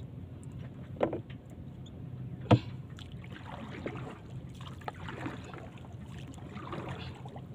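Two sharp knocks on a small boat's hull, then splashing as a paddle is slapped into the sea over the side, under a steady low hum.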